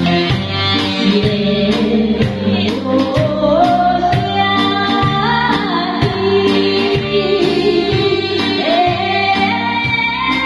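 A woman singing a Taiwanese Hokkien song over a band accompaniment, with a steady beat and guitar.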